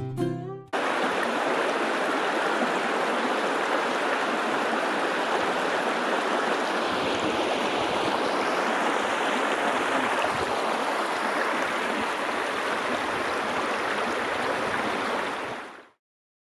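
Shallow river rushing over rocks in small rapids: a steady wash of water noise that fades out near the end.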